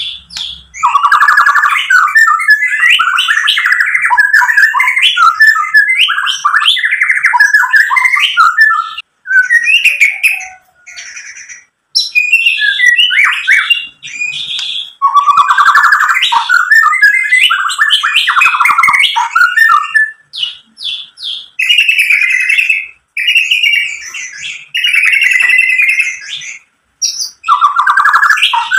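White-rumped shama (murai batu) singing loudly: long, rich phrases of fast, varied whistles and chattering notes, broken by short pauses of about a second.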